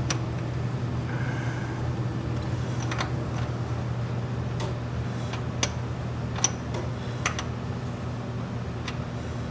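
A steady low hum with about seven short, sharp clicks and taps scattered through it, from small parts being handled during a hydraulic filter change. The loudest click comes about six and a half seconds in.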